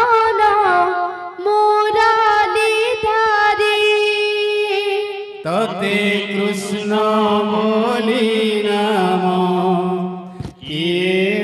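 Devotional kirtan singing: a woman sings a melodic line alone, and about halfway through lower voices take up the chant with a fuller, brighter accompaniment. There is a brief break shortly before the end.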